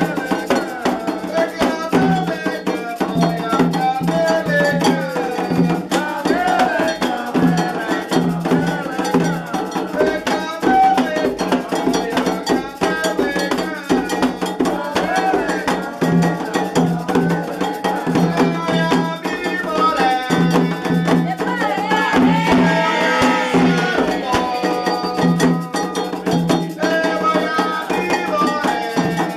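Candomblé ritual music: an agogô bell struck in a steady repeating pattern, with percussion and voices singing.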